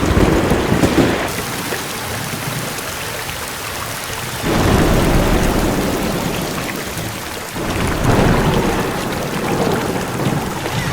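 Heavy rain with rolling thunder: a steady rush of rain with swells of thunder rumble near the start, about four and a half seconds in and again around eight seconds in.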